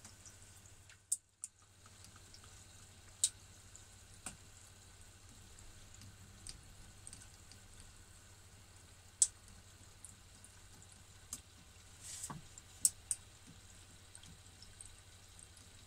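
Beef croquette deep-frying in hot oil in an electric deep fryer: a faint steady sizzle of bubbling oil, broken by occasional sharp pops and crackles, the loudest about nine and thirteen seconds in.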